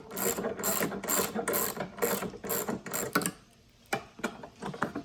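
Hand ratchet wrench clicking in quick, even strokes, about four a second, as a bracket bolt is turned; it stops briefly past the midpoint, then starts again.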